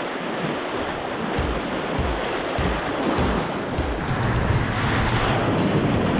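Rushing whitewater of the Soča river in flood, a dense, steady roar of water with low thumps on the microphone, growing somewhat louder about two-thirds of the way in.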